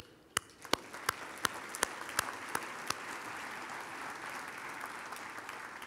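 Banquet audience applauding, swelling after about a second and fading near the end, with sharper close-by claps at about three a second over the first three seconds.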